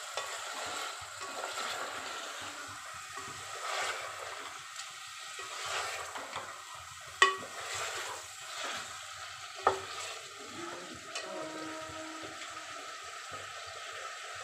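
Chicken pieces frying in a metal pot with a steady sizzle while a metal ladle stirs and scrapes them in slow strokes. Twice, midway through, the ladle knocks sharply against the pot.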